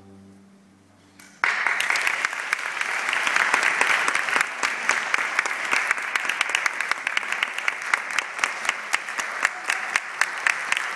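The last held note of the orchestra dies away, then an audience starts applauding suddenly about a second and a half in, with dense clapping that continues.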